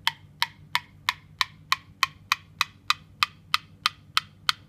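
A spoon taps steadily against the inside of a ceramic mug of freshly stirred hot coffee, about three taps a second. Each tap leaves a short ring whose note rises gradually from tap to tap. This is the hot chocolate effect: bubbles stirred into the liquid lower the note, and it climbs as they clear.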